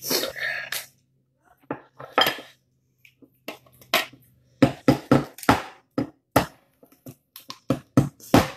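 Kitchen knife chopping through cooked lobster shell onto a cutting board: a run of sharp knocks that starts a few seconds in and comes faster and louder toward the end.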